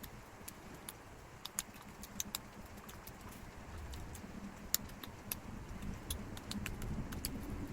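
Eating sounds while chewing pizza: irregular sharp clicks and smacks over a low rumble that grows louder about halfway through.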